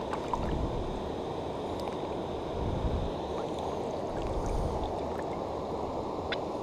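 Steady low rushing noise of river ambience, with a few faint clicks, the clearest near the end.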